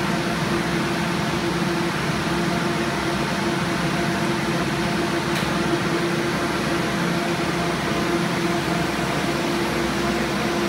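Alternator test stand running steadily: its electric drive motor belt-spins a 50 amp GM one-wire alternator and the load bank cooling fan runs, making an even whirring hum with a constant tone.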